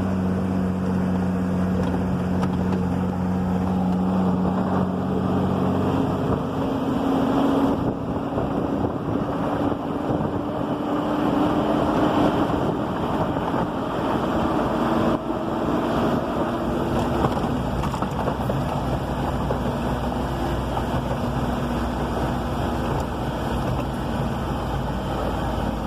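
Loaded truck's engine running while driving on a dirt road, with road rumble throughout. The engine note holds steady, then rises in pitch about six seconds in and turns rougher.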